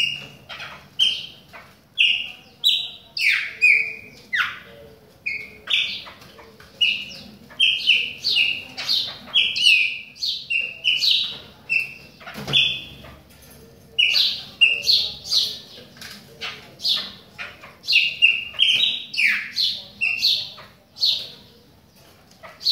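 Chopi blackbird (Gnorimopsar chopi) singing: a continuous run of short, loud, clear whistled notes, several a second, many sweeping sharply downward, broken by brief pauses between phrases.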